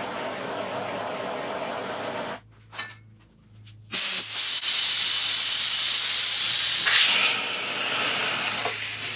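Handheld gas torch burning with a steady hiss, shut off a little over two seconds in. About a second and a half later a loud hiss of compressed air from an air-hose nozzle starts and runs on, easing a little after about seven seconds, as air is blown through a punctured bottle cap to inflate a water bottle inside a dented motorcycle gas tank.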